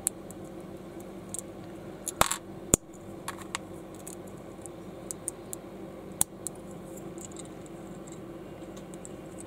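Small plastic building-block pieces clicking and tapping as they are handled: scattered light clicks, the sharpest pair a little past two seconds in and another just past six seconds, over a steady low hum.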